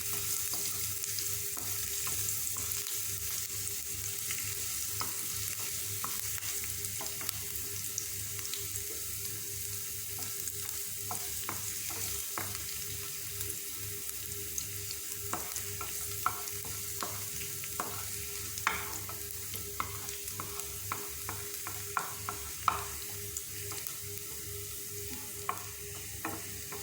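Finely chopped garlic sizzling in hot oil in a pan, sautéed until its raw smell is gone, with a steady hiss and a spatula clicking and scraping against the pan as it is stirred, the clicks coming more often in the second half.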